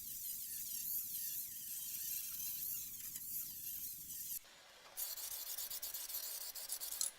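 Steady scratchy hiss of metalwork on a car body panel, a rubbing, filing kind of noise. It cuts out for about half a second some four and a half seconds in, then carries on.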